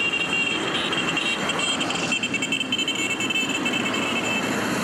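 Street traffic: motorcycles and cars passing on a town road, a continuous mix of engine and tyre noise with a steady high-pitched whine above it.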